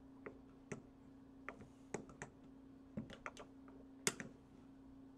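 Scattered small clicks and taps of metal pliers on the plastic cover of an LED bulb as it is worked and pried loose, with one sharper click about four seconds in. A steady low hum runs underneath.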